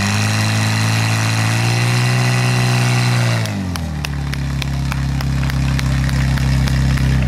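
Portable fire pump engine running hard under load while it drives water through the attack hoses, its pitch creeping up slightly and then dropping to a lower steady speed about three and a half seconds in.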